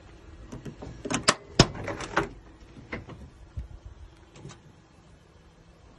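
1979 Ford F-250 pickup door being opened: the outside handle is pulled and the latch releases with a quick run of metallic clicks and a clunk about a second and a half in, followed by a few lighter knocks as the door swings open.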